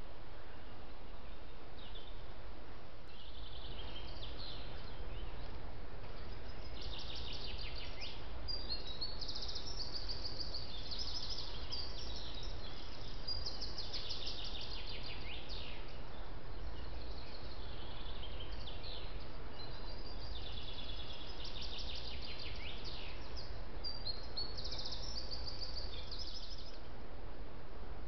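Woodland songbirds singing, with many quick trilled phrases overlapping and following one after another, over a steady hiss and low hum.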